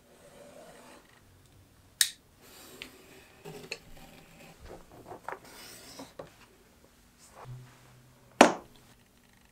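Craft knife blade drawn through leather along a metal ruler, a light scratchy cutting sound with small ticks. There is a sharp click about two seconds in, and a louder knock near the end.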